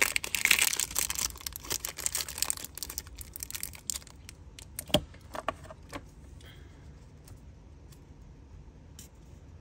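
Packaging crinkling and rustling as it is handled for about four seconds, then a few separate sharp clicks and taps.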